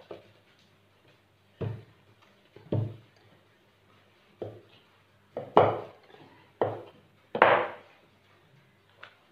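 Wooden rolling pin rolling out dough on a wooden board: a series of about seven short knocking strokes, roughly a second apart.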